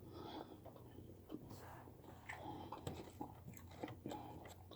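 Close-up chewing of fried chicken: faint, irregular crunches and wet mouth clicks as the food is bitten and chewed.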